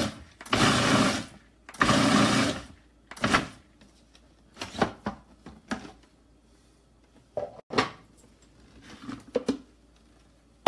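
Food processor with an S blade pulsed on fresh herbs in short bursts, two full pulses and a brief third within the first few seconds. Then plastic clicks and knocks as the lid and bowl are twisted off the motor base.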